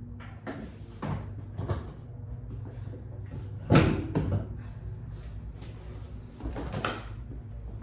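Clunks and knocks of a motorcycle saddlebag being taken off: the lid opened and shut, the release knob turned and the bag pulled free of its mounts, with one sharp knock about four seconds in the loudest.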